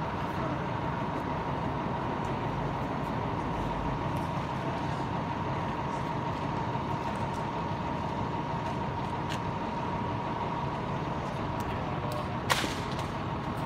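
Vehicle engine idling steadily, with a steady high hum over it. A single sharp click near the end is the loudest moment.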